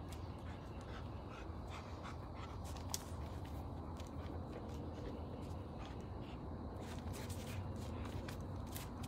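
A dog panting, with scattered light clicks over a steady low hum.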